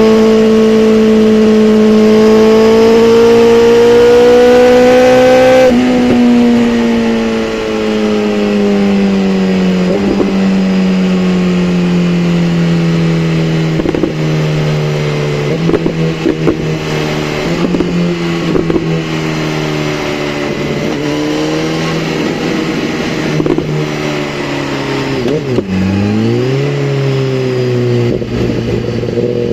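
BMW S1000RR inline-four engine running under steady throttle, the revs creeping up and then falling away over several seconds after the throttle closes about six seconds in. It holds at lower revs with scattered crackles, dips sharply near the end, then climbs again as the throttle opens.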